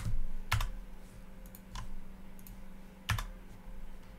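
A handful of separate keystrokes on a computer keyboard, spaced out rather than continuous typing, the loudest near the start and about three seconds in.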